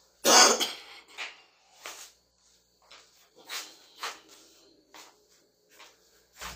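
A louder scuffing clatter about half a second in, then a series of soft scuffing footsteps of slip-on shoes on a tiled floor, spaced unevenly.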